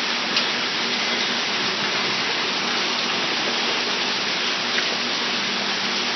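Heavy downpour of rain mixed with hail, a dense, steady hiss of water pouring onto surfaces, with a faint tick or two from single strikes.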